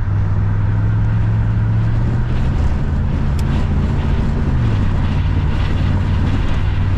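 Inside a moving Chevrolet Camaro Z28: a steady low engine drone with road noise, the engine note dropping a step about two-thirds of the way through. Wind noise leaking past the door weather stripping rushes under it.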